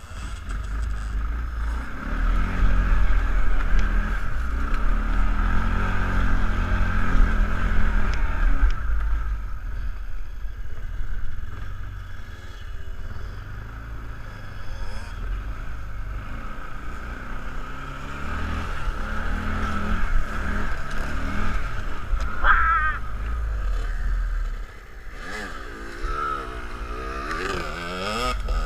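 Kawasaki ATV engine running while riding off-road, its loudness rising and falling with the throttle. It drops away briefly near the end, then picks up again.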